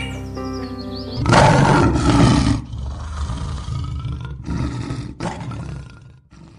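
Background music, then about a second in a loud roaring sound effect for the logo outro: one long roar, the loudest part, followed by several shorter roars with brief breaks, fading away near the end.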